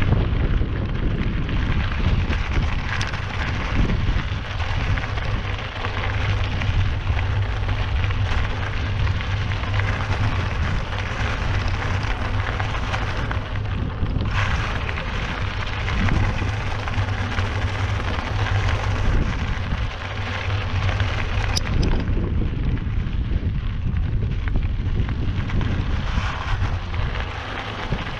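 Steady, loud rumbling noise with a crackling hiss, of the kind wind buffeting a microphone makes.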